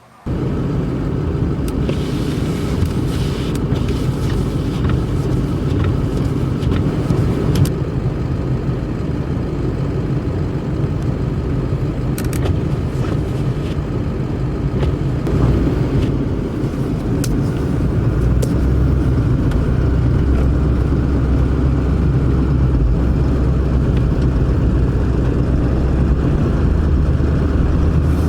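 Road vehicle driving: a steady engine drone with road noise that starts abruptly just after the start, the low hum shifting in pitch a little past halfway.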